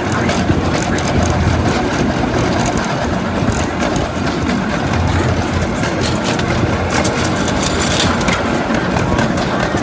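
Ride-on railroad train running along its track: a steady rumble of the train and its wheels, with a few sharp clicks about two thirds of the way through.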